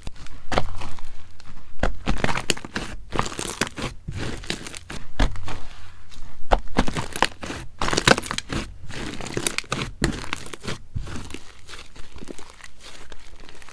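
Slime being squished, stretched and folded by hand, giving irregular bursts of crackling and sticky popping.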